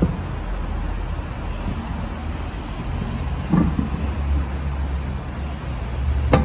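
Steady low vehicle rumble, with two brief knocks, one about halfway through and one near the end.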